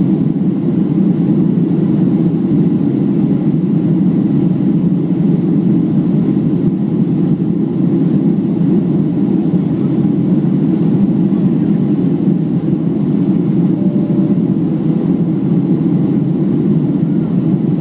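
Steady cabin noise of a Boeing 737 airliner in flight: an even, low rush of engines and airflow heard from inside the passenger cabin.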